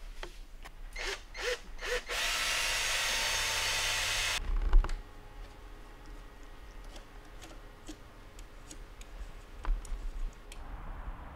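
Workshop tool sounds: a few clicks and knocks, then a power tool runs steadily for about two seconds and cuts off abruptly, followed by a thump. After that comes lighter, scattered ticking and tapping of hand-tool work.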